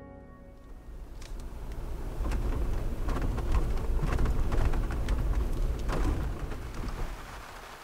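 Rolling thunder over steady rain: a deep rumble that builds for a few seconds, with scattered cracks, and dies away near the end.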